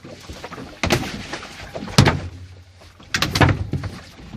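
A freshly landed gummy shark thrashing on a boat deck: heavy thumps about a second apart, with a quick cluster of knocks near the end.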